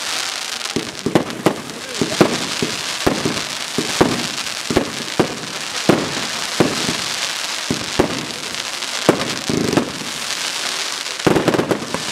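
Aerial fireworks bursting in a rapid, irregular string of sharp bangs, about two a second, over a steady hiss.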